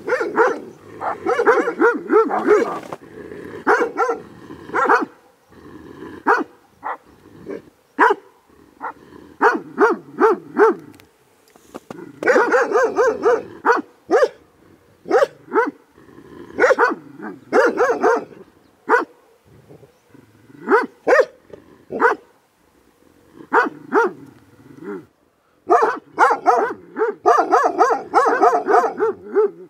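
A dog barking loudly in repeated bouts of quick barks, with short pauses between the bouts.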